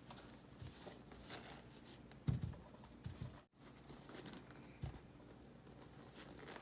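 Soft handling sounds: light rustling with a few dull thumps, the loudest a little over two seconds in.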